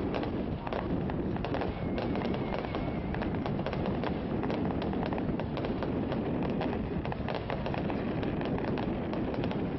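Many fireworks going off at once: a dense, continuous crackle of small pops and bangs over a steady rumble. A brief wavering whistle comes about two seconds in.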